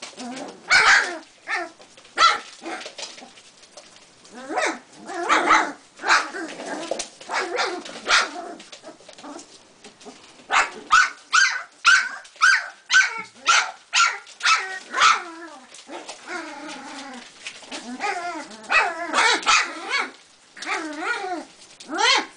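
Several young puppies yapping as they play: a quick run of sharp yips about two a second through the middle, and wavering, whiny yaps near the end.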